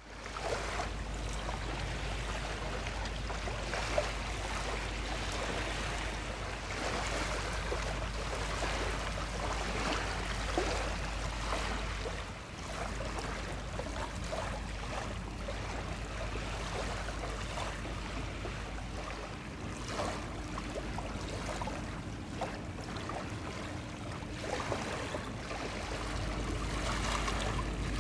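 Small waves lapping and splashing against the rocks of a riverbank, over a steady low rumble. A faint steady hum joins in about two-thirds of the way through.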